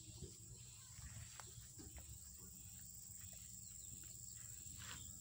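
Quiet outdoor ambience: a steady, faint, high-pitched insect trill, with a few faint clicks and rustles.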